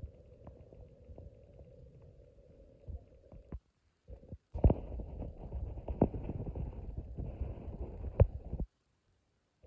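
Wind rumbling on the microphone, cutting in and out abruptly and louder in the second half, with a few sharp thuds mixed in.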